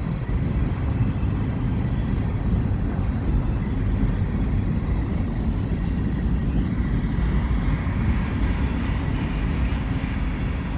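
Freight cars of a slow-moving train rolling past, a steady low rumble of wheels on rail, with a faint higher hiss building in the second half.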